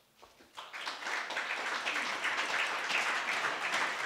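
Audience applauding, starting about half a second in and keeping up steadily.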